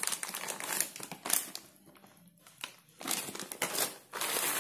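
Crinkling and rustling of a paper instruction sheet and packaging being handled, in two spells with a quieter gap of about a second and a half between them.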